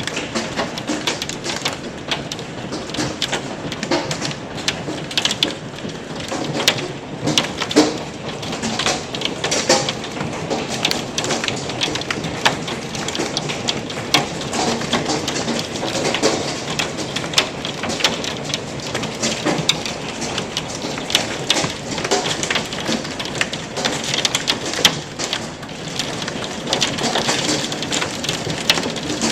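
Heavy hail and rain: a dense, steady hiss of rain with many sharp cracks and clicks of hailstones striking hard surfaces throughout.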